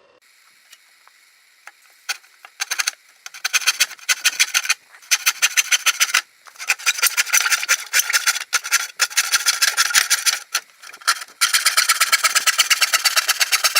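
Hand saw cutting through a wooden board in rapid back-and-forth strokes, rasping, in short stop-start runs at first and then sawing steadily from about eleven seconds in.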